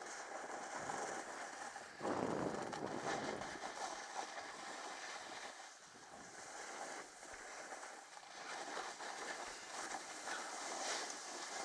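Snowboard sliding and scraping over hard-packed, crusty snow, with wind rushing over the goggle-mounted camera's microphone. The scrape grows louder for a second or so about two seconds in.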